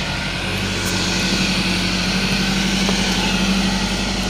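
Small motorcycle engine running steadily as the bike rides along, its hum getting a little louder about a second in.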